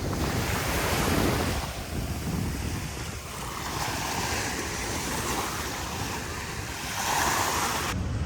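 Waves washing onto a sandy beach, with wind buffeting the microphone; the surf swells about a second in and again near the end, then cuts off suddenly.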